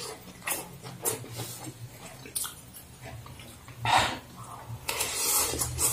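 A person eating fried noodles close to the microphone: short wet chewing and smacking sounds, a louder one about four seconds in, then a longer slurp of noodles near the end.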